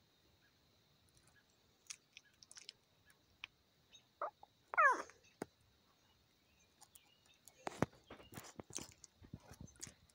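A puppy gives a faint squeak and then, about five seconds in, a short whimper that slides down in pitch. Soft rustling and clicks follow, from its fur brushing against the phone's microphone.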